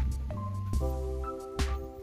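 Background music: held chords over a bass line, with a drum hit at the start and another a little past the middle.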